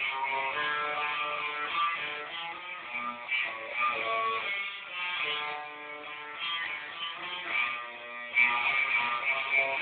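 Electric guitar played through an amplifier: a riff of picked notes and chords that changes pitch every fraction of a second, with a louder passage near the end.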